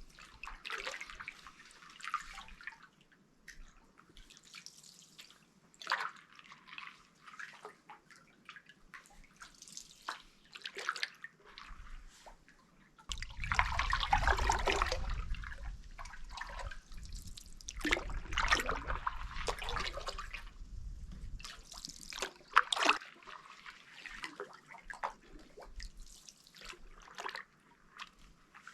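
Canoe paddle strokes in lake water: irregular splashes and drips every few seconds, with a louder run of splashing about halfway through.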